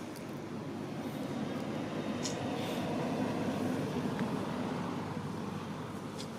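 Low rumble of a vehicle passing in the background, swelling towards the middle and easing off again.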